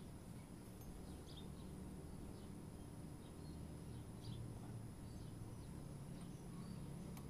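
Faint outdoor ambience: a low steady rumble with scattered short bird chirps, several over a few seconds.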